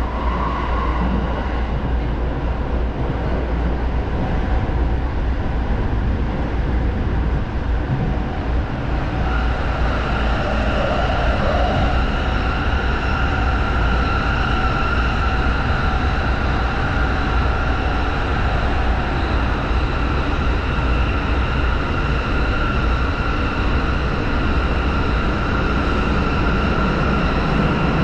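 Inside a JR Musashino Line commuter train running at speed: a steady rumble of wheels and running gear. About nine seconds in, the train enters a tunnel, and the sound rises a little and takes on a steady high whine.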